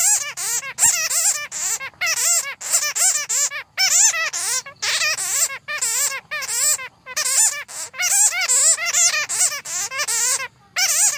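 Bats squeaking and chittering: rapid, wavering high-pitched squeaks in bursts of about a second, separated by short gaps.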